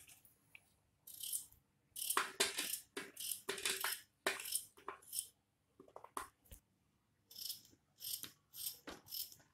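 Kitchen knife cutting raw potato into cubes on a plate: a string of short, faint cuts and taps of the blade on the plate, about two a second and somewhat uneven.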